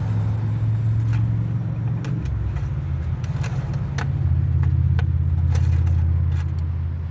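A car engine running steadily as a low hum, louder from about four seconds in. Scattered light clicks and taps, the dipstick being handled and wiped, sound over it.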